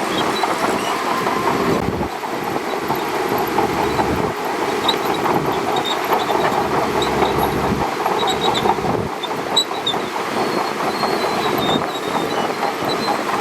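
Shantui DH17C2 crawler bulldozer running, its engine droning steadily under a fast, continuous clatter of steel tracks.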